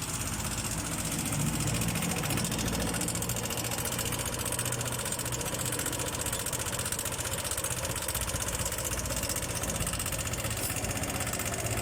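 Yamaha NMAX scooter engine idling steadily with a fast, even knocking tick from inside the engine. The knock comes from play in the exhaust rocker arm's bearing, which has also worn the tip of the exhaust valve.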